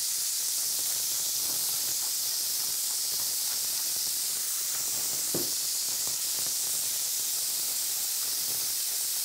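Strips of venison sizzling in a frying pan of rapeseed oil heated to its smoke point, a steady high hiss as the meat sears.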